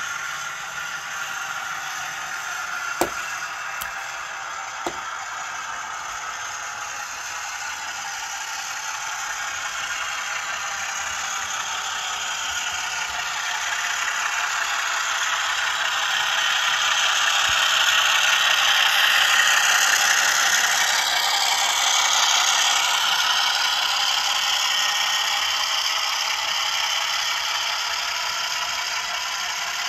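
Bowser Alco RS-3 model locomotive running along the track with a steady mechanical rattle and clatter of wheels and gears. It grows louder through the middle as it comes closer, then eases off. Two sharp clicks sound early on.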